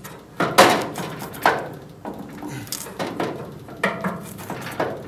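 Steel torsion bar and spring plate knocking and clunking in the torsion housing of a VW Karmann Ghia rear suspension as it is worked loose by hand, a series of irregular metal knocks.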